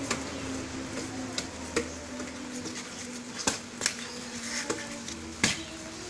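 Forearms knocking against the stick arm of a homemade old-tyre martial-arts dummy in arm-blocking drills: about seven sharp, irregular knocks, the loudest about three and a half and five and a half seconds in, over a steady background hum.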